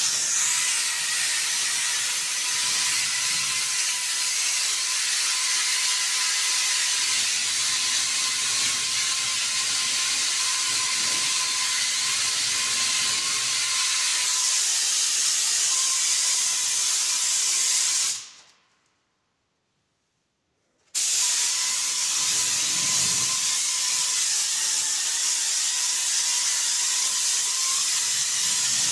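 Compressed-air paint spray gun with its paint cup below the gun, spraying paint in a steady hiss with a thin whistle running under it. The hiss stops for about three seconds past the middle, then carries on.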